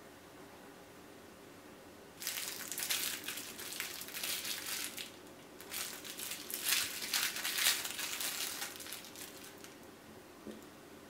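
Clear plastic wrapper crinkling as it is handled and pulled off a small squishy toy, in two stretches of about three seconds each, starting about two seconds in.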